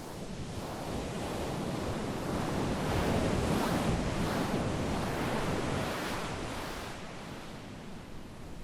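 A rushing noise like surf or wind, with no distinct tone, that swells over about three seconds and then slowly fades.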